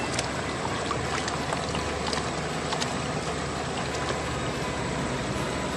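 Water swishing steadily in a wooden gold-panning pan as sediment is swirled and washed, with scattered faint ticks.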